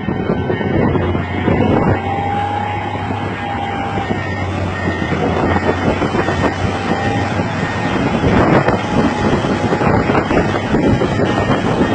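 Heavy-equipment diesel engine running steadily, with a faint whine coming and going in the first half and wind buffeting the microphone.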